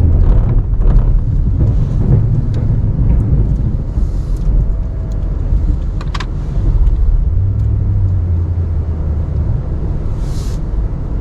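Plow truck's engine running under load as it pushes snow, a steady low rumble that grows stronger for a couple of seconds past the middle, with a few brief hissing noises.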